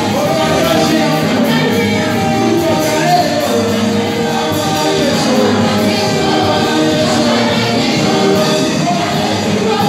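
Live gospel praise singing: a group of singers singing through microphones over musical backing with a steady beat.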